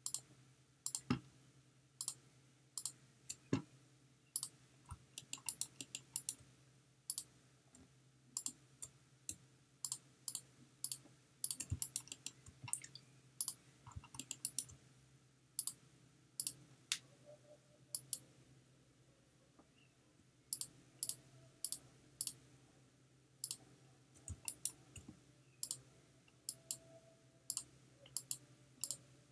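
Computer mouse and keyboard clicking irregularly, single clicks and quick clusters, over a faint steady low hum.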